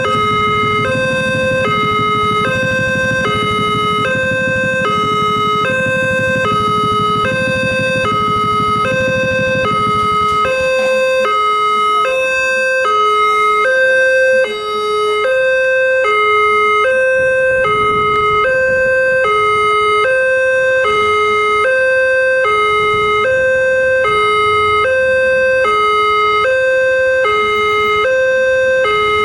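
Railway level-crossing warning alarm sounding: an electronic two-tone chime alternating steadily between a higher and a lower note, about one pair a second. A low rumble runs under it and stops about ten seconds in.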